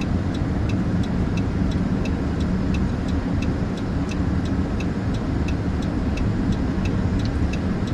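Steady road and engine rumble heard inside a moving car's cabin, with a light, even ticking about three times a second.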